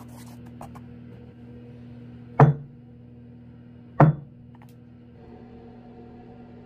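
A round metal cake pan full of batter dropped twice onto a cloth-covered table, two sharp thuds about a second and a half apart, knocking large air bubbles out of the batter before baking. A faint steady hum runs underneath.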